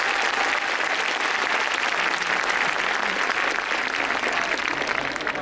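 Large football stadium crowd clapping steadily, thousands of hands at once.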